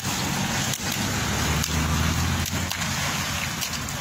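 Water splashing and slapping as fishermen wade and beat the surface to chase fish into a seine net. Irregular sharp slaps, about one a second, over a steady wash of noise and a low rumble.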